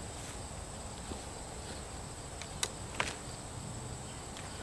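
Insects trilling in one steady high-pitched tone over a quiet outdoor background, with a few faint ticks.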